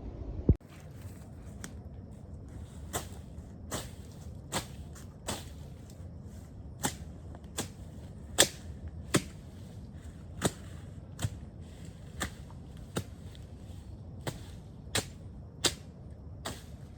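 Machete slashing through weeds and bush in a steady rhythm, about one short sharp stroke every three-quarters of a second, as a plot is cleared by hand. The loudest hit comes about half a second in.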